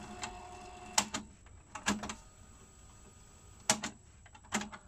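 Transport buttons of a Technics RS-D190W cassette deck being pressed: sharp mechanical clicks every second or so, some in quick pairs.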